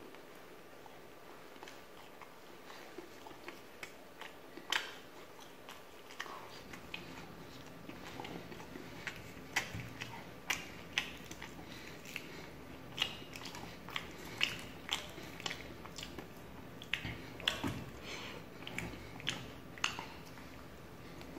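A person biting and chewing tandoori chicken lollipop, with sharp wet mouth smacks and clicks. They are sparse at first and come much more often from about six seconds in.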